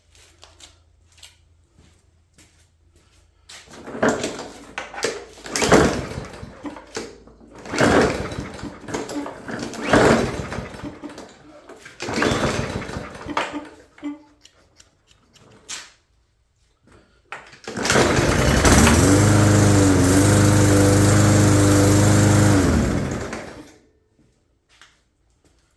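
Small lawnmower engine being cranked over in several short bursts without catching, then starting and running steadily for about five seconds before cutting off. It starts without ether, its carburetor freshly cleaned and the engine primed.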